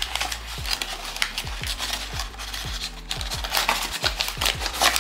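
Small clicks, taps and scrapes of hands handling plastic blind-box packaging and small PVC figure pieces, over background music with a steady low beat.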